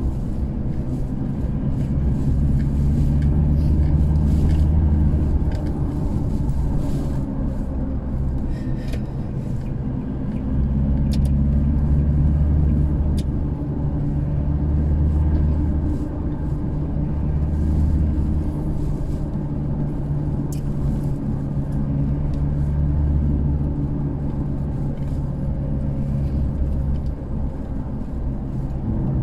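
Toyota Hilux pickup on the move, heard from inside the cab: a steady low rumble of engine and road noise that swells and eases several times, with a few faint ticks.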